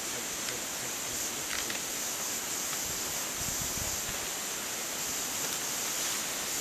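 Steady outdoor background: an even hiss with a constant high-pitched drone, a few faint ticks early on, and a low wind rumble on the microphone about three and a half seconds in.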